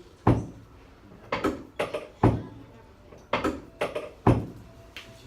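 Pelvic drop piece of a chiropractic drop table slamming down under a thrust during a pelvic adjustment: three sharp thuds about two seconds apart, the second and third each preceded by a couple of lighter knocks.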